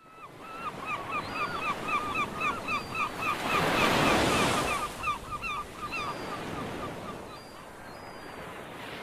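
A rapid series of short, hooked bird calls, about four or five a second, over a rush of surf-like noise that swells to a peak about four seconds in and then eases. The calls thin out after about six seconds.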